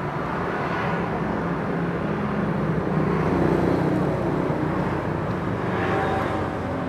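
Road traffic: motor vehicles passing close by, with engine hum swelling about three seconds in and again near six seconds.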